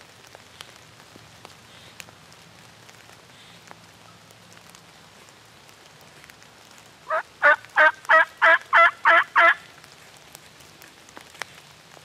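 A run of eight turkey yelps, about three a second, the first one soft and the rest loud and even. Faint scattered ticks of dripping rain lie beneath.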